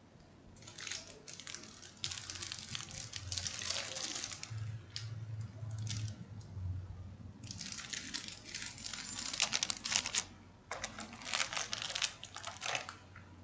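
Thin plastic packaging bags crinkling and rustling as a radio's accessories are handled and unwrapped. There are two long stretches of crinkling with a brief lull between them.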